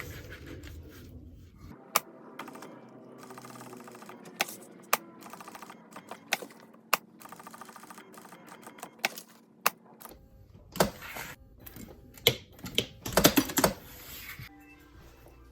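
A series of irregular sharp clicks and taps, several in quick succession and the loudest cluster about thirteen seconds in.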